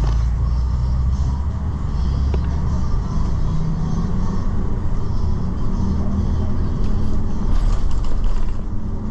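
Shuttle bus running through city traffic, heard inside the cabin: a steady low engine and road rumble whose pitch steps up slightly a couple of times, with a few faint clicks from the cabin.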